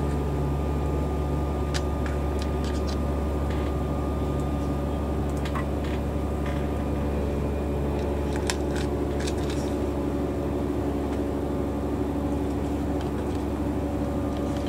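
Steady machine hum with several level tones, and a few light clicks now and then as a small plastic case of drill bits is opened and the bits handled.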